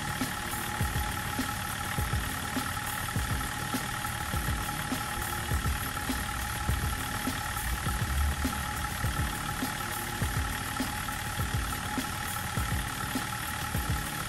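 BMW E39 5 Series engine idling steadily.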